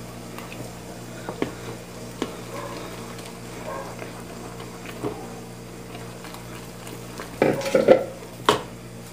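A spoon stirring flour into hot broth in an aluminium pot, scraping and now and then knocking against the pot. The loudest clatter comes near the end: a short cluster of knocks followed by one sharp knock.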